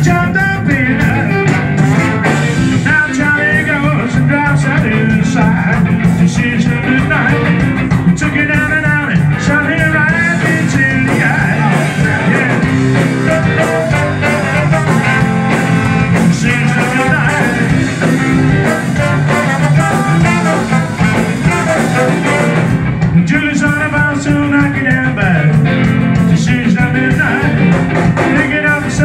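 A live ska band plays loudly, with saxophone and trombones over electric guitar, bass and drums, and vocals.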